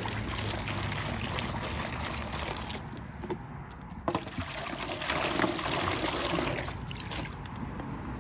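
Water poured from a plastic jug splashing into buckets being rinsed, first into a black bucket, then, after a short break about three seconds in, louder into a metal bucket.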